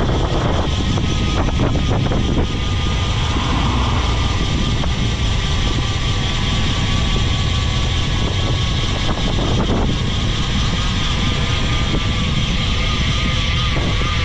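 Wind rushing over the microphone of a road bike's handlebar camera at about 30–40 km/h: a steady, loud low rumble, with the hiss of the tyres on damp asphalt underneath.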